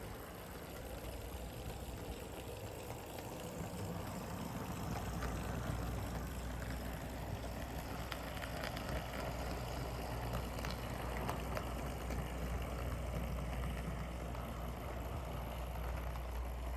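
HO scale Alco RS2 model locomotive running along the track on a new budget motor, with a low steady hum and a few faint clicks. The hum grows louder about five seconds in. It runs silky smooth and quiet, a sign that the replacement motor has cured the old one's poor running.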